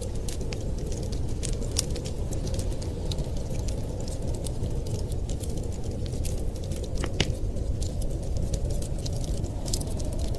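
Wood fire crackling in a fireplace: irregular sharp pops and snaps, one stronger pop about seven seconds in, over a steady low rumble.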